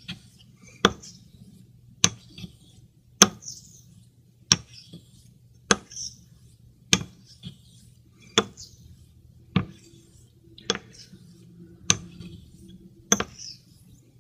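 A 15/16-inch Greaves near-wedge straight razor being honed on a wet Shapton Pro synthetic hone: a sharp click about every second and a quarter as the blade is turned over on its spine against the stone at each stroke, with a fainter scrape of steel across the stone after each click.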